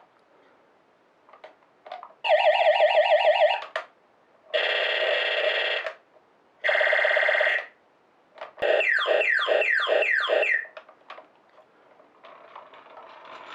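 Space Commander toy robot's battery-powered laser gun playing four electronic sound effects one after another: a warbling tone, a steadier buzzing tone, another short warble, then a run of about seven quick falling zaps.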